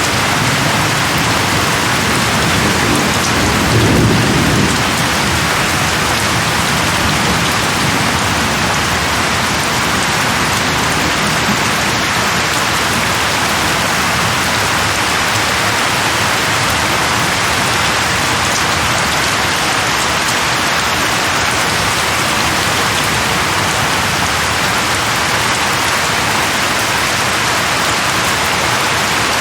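Steady, heavy rain falling in an even hiss, with a low rumble of thunder swelling and fading around four seconds in.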